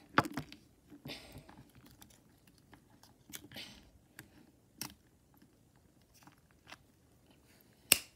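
Scissors snipping at the ties holding a plastic action figure in its packaging: a handful of separate sharp clicks with light plastic rustling between them. The loudest click comes just before the end, with another sharp one right at the start.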